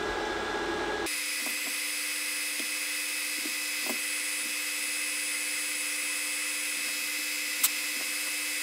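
Steady hum and hiss of a small motor that starts abruptly about a second in, with a few faint ticks.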